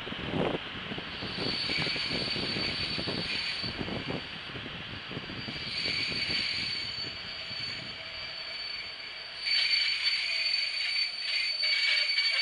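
Passenger train slowing into a station, heard from an open carriage window: the wheels knock over the rail joints at a slackening pace, and high steady brake squeal comes and goes in stretches, loudest near the end as the train comes almost to a stop.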